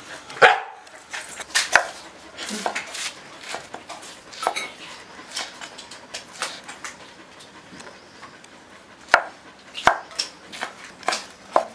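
Large knife chopping green chillies on a wooden cutting board, a string of sharp irregular chops that come faster near the end.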